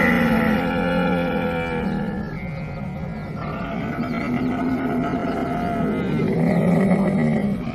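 Camel calling: a long, low, pitched vocalization with a strong stack of overtones that shifts pitch a couple of times and keeps going without a break, loudest near the end.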